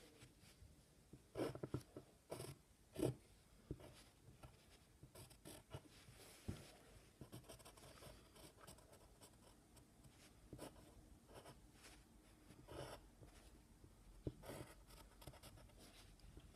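Faint scratching of a pencil drawing on paper, in short irregular strokes with a few louder scrapes.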